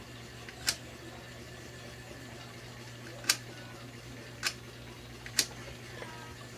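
Four sharp, short clicks at uneven spacing from the homemade coin-operated ballpen vending machine being worked by hand, over a steady low hum.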